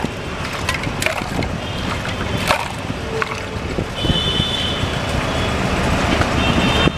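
Water poured and sloshed from a steel mug into a glass, with a few sharp clinks, over steady street traffic noise and a couple of brief high horn toots around the middle and near the end.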